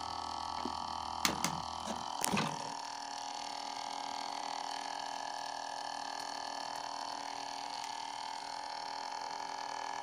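Steady electrical hum of a washing-machine drain-pump motor rigged as a 220 V generator, running off a 12 V battery while it lights two LED bulbs. A few sharp clicks and knocks of handling in the first couple of seconds.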